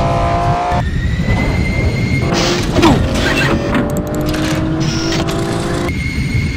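Sci-fi sound effects of robotic armour deploying: mechanical whirring and clanking over a deep rumble, with music underneath.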